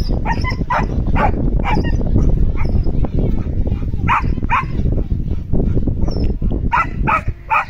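Dog barking: about ten short barks at uneven intervals over a constant low rumbling noise.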